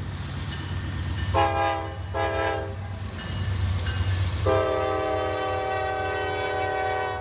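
Freight locomotive air horn sounding several notes at once: two short blasts, then a long blast that starts about halfway through and is still sounding at the end. A steady low rumble runs underneath.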